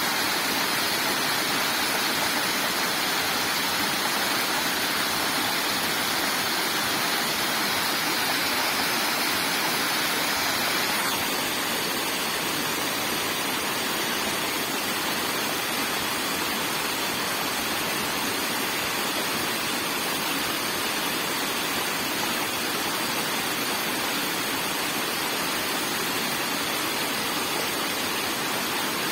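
Steady rush of running water from a small roadside waterfall, a little softer after about eleven seconds.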